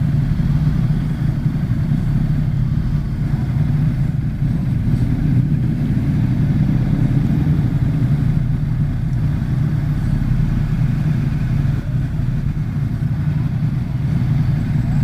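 Ducati XDiavel's 1262 cc L-twin engine idling steadily at a standstill, with other motorcycles idling around it.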